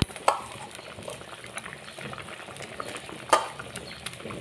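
Papaya-and-potato curry bubbling at a steady boil in a metal kadai, with two sharp clicks, one just after the start and a louder one about three seconds later, as fried lentil fritters are dropped into the gravy.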